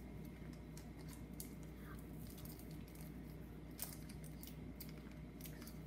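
Faint crinkling and scattered small ticks of a foil trading-card booster pack being handled.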